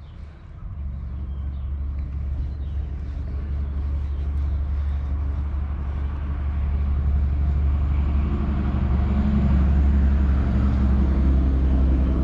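Motorboat engine running with a steady low hum, growing louder over the first ten seconds or so and then holding level.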